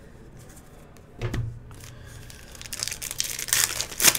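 A foil trading-card pack wrapper crinkling and tearing open by hand, building in the last second and a half and loudest near the end. A single knock about a second in.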